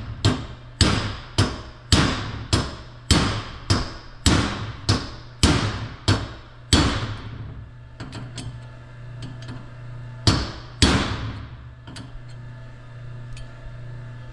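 Hammer tapping a steel punch to drive a needle post down into the planet gear carrier of a John Deere torque hub final drive: about a dozen light, evenly spaced metallic strikes, roughly two a second, each with a short ring. Then a pause with a few faint clicks, and one more strike about eleven seconds in.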